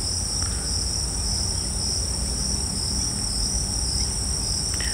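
Steady, high-pitched chirring of crickets, with a low rumble underneath.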